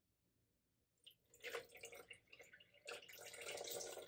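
Evaporated milk pouring from an upturned can into a blender jar: after about a second of silence the pour starts in irregular splashes, then runs as a steady stream.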